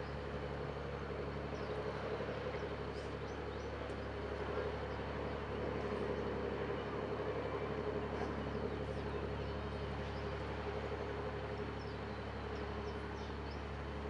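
Steady, wavering hum of distant traffic and machinery, with faint, short bird chirps scattered through it.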